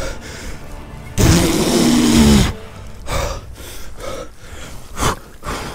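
A man straining as he wades in deep river water: a long, loud groan with a heavy breath about a second in, then a few short, sharp breaths.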